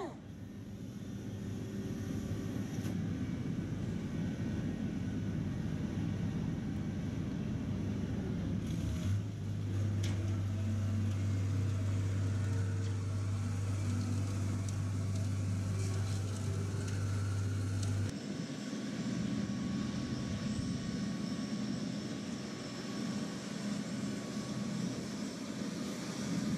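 Engines of harbour dredging plant running: a steady low rumble. About nine seconds in, a louder deep hum starts abruptly and cuts off suddenly nine seconds later.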